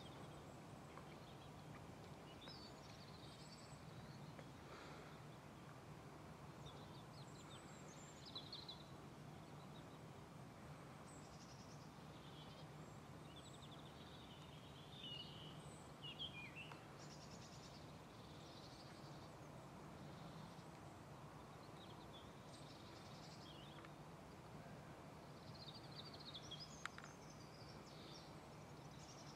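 Quiet outdoor ambience: small birds chirping and twittering on and off over a faint, steady low hum, with a single sharp click near the end.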